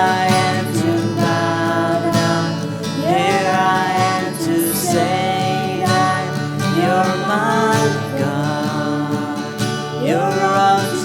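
Worship band music led by guitar, with a melody line whose phrases glide into each note.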